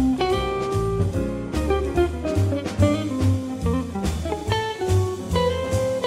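Jazz band playing: an archtop guitar plays a line of quick single notes over bass and drums.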